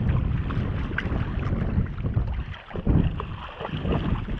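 Wind buffeting the microphone over choppy sea water, with brief splashing as a hooked sea bass thrashes at the surface.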